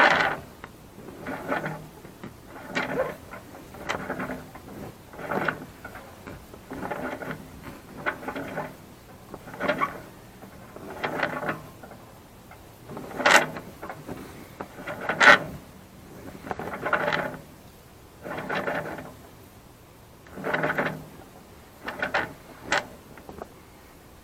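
Rope rasping through a sailboat mast and over the masthead sheave as a new 8mm halyard is hauled through by hand, in about fifteen separate pulls, roughly one every second and a half.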